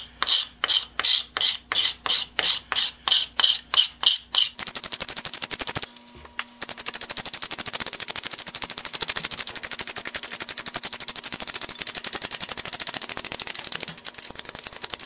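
Hand scraping paint off the wooden handle of an egg beater drill: quick, even strokes about three a second, then after about four and a half seconds a much faster, continuous run of short strokes, broken briefly twice.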